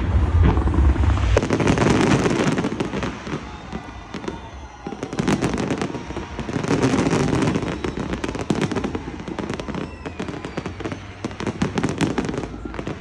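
Aerial fireworks bursting overhead: a dense, rapid run of bangs and crackles, heaviest in the first couple of seconds and again about six to eight seconds in, easing briefly in between.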